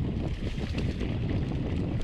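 Wind buffeting the microphone of a camera riding on a mountain bike, over the rattle and small knocks of the bike rolling along a rough dirt trail.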